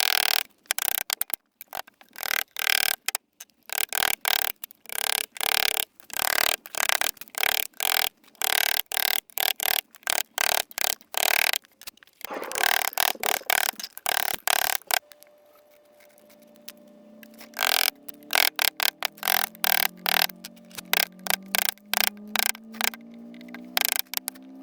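Hand carving in white birch: a blade slicing and scraping the wood in rapid, irregular short cuts. Soft background music comes in about two-thirds of the way through, under further cuts.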